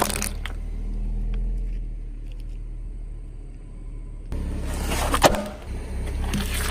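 Car engine running with a steady low rumble, broken by a sharp crack about five seconds in.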